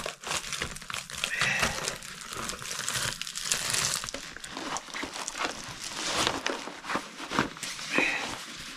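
Crinkling of a foil freeze-dried meal pouch and a silver bubble-foil pouch cozy being handled, an irregular run of crackles.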